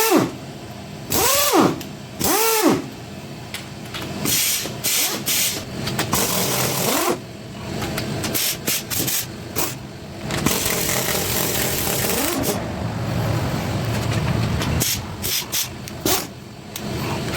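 Impact wrench on a small block Chevy 350's cylinder head bolts: several short trigger pulls, each a whine rising and falling, with clanks between them, then a longer stretch of steady rattling hammering from about ten seconds in. The owner says the impact is giving him trouble.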